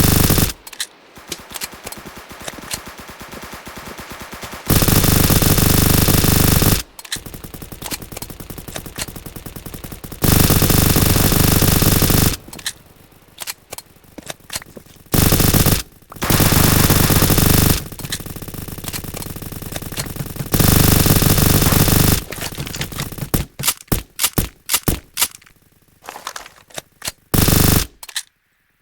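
Airsoft gun fired in repeated full-auto bursts: runs of rapid clicking shots, broken by several loud stretches of continuous noise lasting one to three seconds each.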